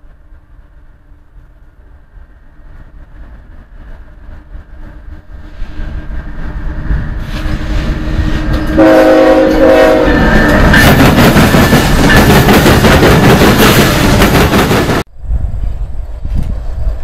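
CSX freight train with diesel locomotives approaching and passing close, its horn sounding two short blasts about nine seconds in. The rumble builds steadily, then the loud roar and rail clatter of the locomotives and cars going by cut off suddenly about fifteen seconds in, giving way to a quieter rumble.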